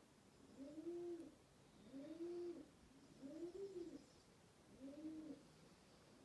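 Pigeon cooing in a steady series of low, rising-and-falling coos, about one every second and a quarter.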